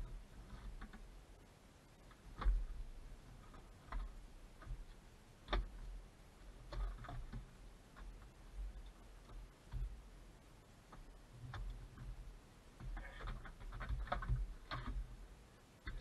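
Plastic interior trim of a VW Beetle being handled and pressed into place: a few sharp clicks and light knocks spread out, then a busier run of quick clicks and rustling near the end as the seatbelt webbing is pulled.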